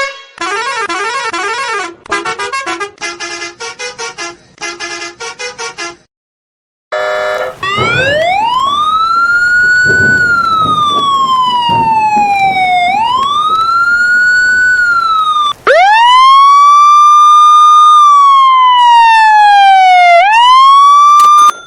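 A string of emergency-vehicle siren sounds. First comes a fast warbling tone in choppy bursts. After a short break a siren wails, rising and falling slowly twice, and then a louder siren sweeps up, falls slowly and sweeps up again before it cuts off.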